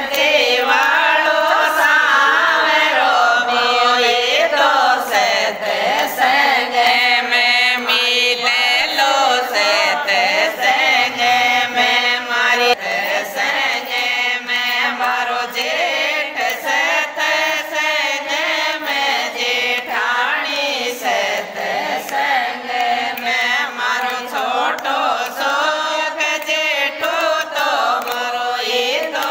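A group of women singing a Hindi devotional bhajan to Krishna in unison, with steady hand-clapping keeping the beat.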